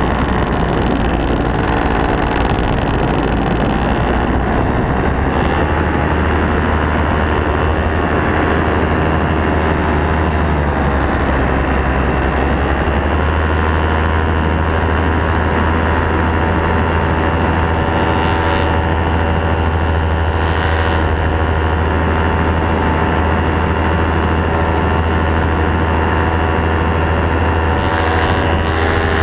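Paramotor's two-stroke engine and propeller running steadily in flight, heard from the pilot's harness. The engine note steps up slightly a few seconds in and again near halfway.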